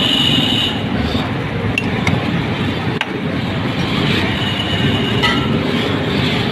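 Steady roadside traffic noise with background voices, and a few sharp clinks of glass mugs and a steel jug being handled at a juice cart.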